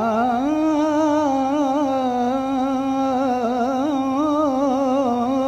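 A man's voice holding one long sung vowel of a Punjabi naat, unaccompanied, the pitch stepping up about half a second in and then wavering in small ornaments.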